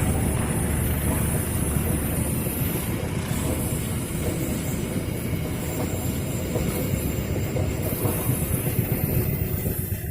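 A passenger train's carriages rolling past on the rails, the wheels clattering steadily, with a faint high wheel squeal in the later seconds.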